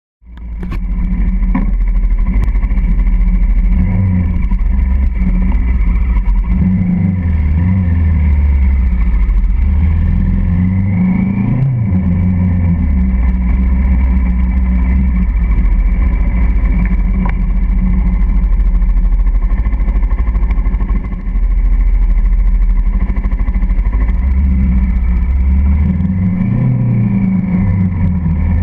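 Motorcycle engine running from the bike's own onboard camera, rising in pitch as it accelerates several times: a few seconds in, about a third of the way through, and near the end.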